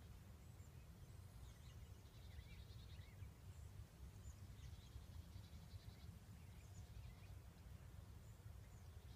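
Near silence: faint woodland ambience with a steady low rumble. A few faint, high, buzzy trills and small chirps come every two to three seconds.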